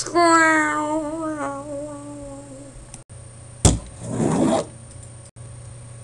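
A voice holding one long note for about two and a half seconds, its pitch sagging slightly. A sharp knock comes about three and a half seconds in, then a short scraping rustle from a hand rubbing on a tabletop.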